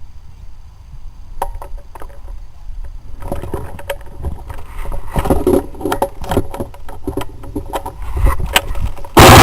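Rustling, crunching and knocking as a player moves through snowy woods carrying a gun-mounted camera, with clicks and bumps of the gear being handled. It grows busier after about three seconds, and a sudden loud rush of noise on the microphone comes near the end.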